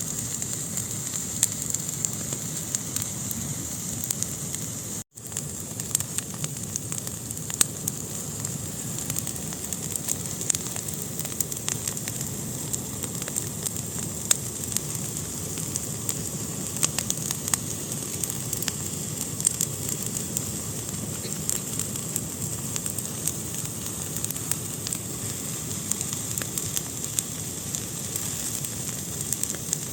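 Fire burning in a fireplace: a steady hiss with frequent small crackles and pops, broken by a momentary dropout in the sound about five seconds in.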